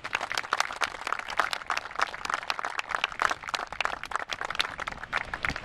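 Audience applauding: many hands clapping at once in a dense, irregular clatter.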